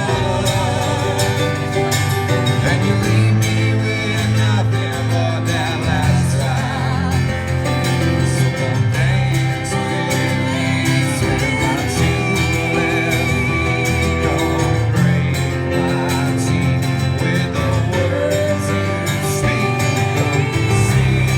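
Live band music: guitars over a steady bass, with a wavering melody line on top.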